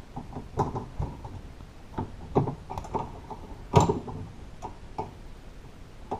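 Irregular light clicks and knocks of a screwdriver and small metal parts as a tiny Phillips screw is worked out of a car door's handle assembly, with one louder knock a little under four seconds in.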